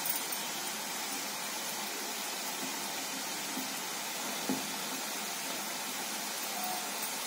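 Garelu (lentil fritters) deep-frying in hot oil in a steel kadai: a steady sizzling hiss, with one light knock about four and a half seconds in.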